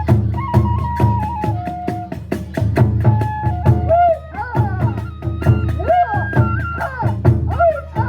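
Kagura hayashi music: a transverse bamboo flute plays a melody with bends and slides over a steady beat of drums and small hand cymbals struck several times a second.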